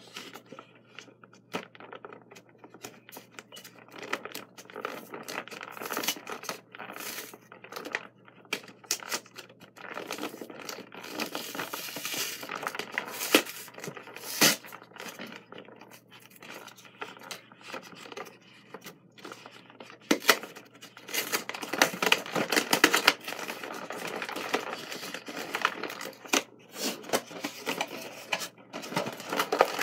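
Cardboard packaging of a trading-card pin box being torn open and handled: irregular tearing, crinkling and scraping with sharp clicks, busier and louder in the second half.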